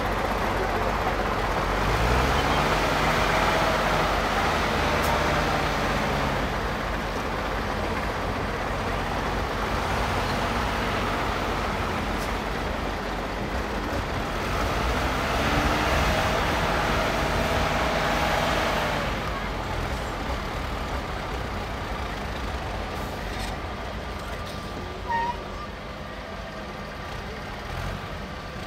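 IFA W50LA dump truck's four-cylinder diesel engine working under load off-road, revving up about two seconds in and again around fifteen seconds, then easing off and growing fainter near the end.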